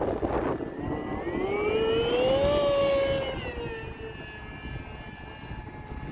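Hobbyzone Aeroscout S RC plane's brushless electric motor and propeller whining, rising in pitch as the throttle comes up for takeoff about a second in, then easing slightly and fading after about three seconds as the plane flies off. Wind rumbles on the microphone throughout.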